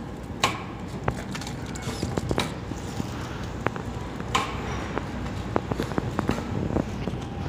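DPP-160 blister packing machine running: a steady hum with frequent light clicks and knocks, and a sharper clack followed by a short hiss shortly after the start and again about four seconds later.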